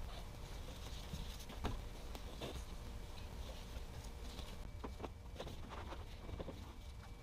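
Gloved hands working a transmission cooler hose connection and wiping with a towel: faint scattered clicks and light rustling, the sharpest click a little past a second and a half in and a cluster around five to six seconds, over a low steady room hum.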